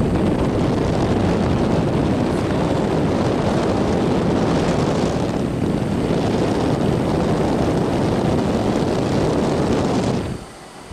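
Electric fan on its highest setting blowing air across the camcorder's microphone: a loud, steady rushing of wind noise that the camera's wind reduction is being tried against. It drops away sharply for a moment near the end.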